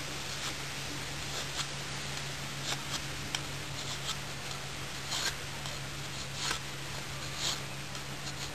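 ST3-F knife blade shaving a wooden stick to a point, one short scraping stroke about every second, over a steady background hiss.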